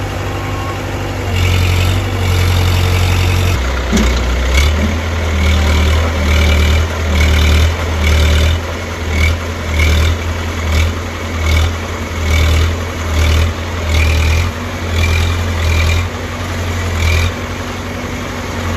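Heavy diesel engine running and then revved up and down over and over, a little more than once a second, from about four seconds in, as the stuck truck's front end is lifted.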